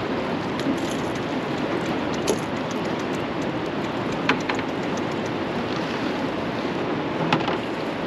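Steady rush of choppy river water and wind on the microphone from an open boat, with a few sharp knocks about two, four and seven seconds in.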